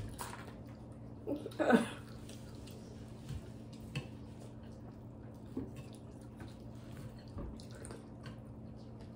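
Faint wet chewing and small mouth clicks of people eating steak, over a low steady hum. A short voiced sound, like an "mm", comes in a little under two seconds in.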